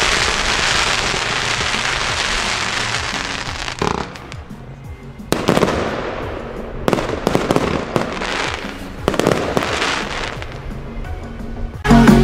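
Nico 'Bling Bling' compound fireworks cake firing. Dense crackling for the first few seconds, then a string of shots and bursts, each followed by crackle, about one every second or so. Loud electronic music with a heavy beat cuts in near the end.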